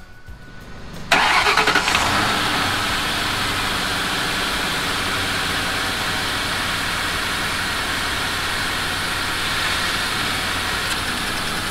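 A 2004 Mercury Grand Marquis's 4.6-litre V8 starts about a second in, flares briefly, then settles to a steady idle. This is the first start after its leaking exhaust manifold was replaced.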